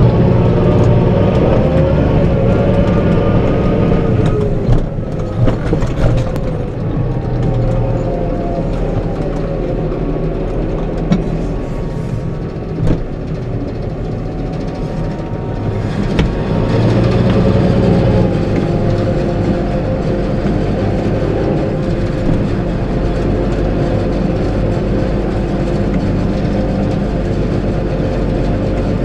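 Tractor engine running under load, heard from inside the cab, its pitch rising and falling a few times as engine speed changes. A few sharp knocks and rattles from the cab in the first half.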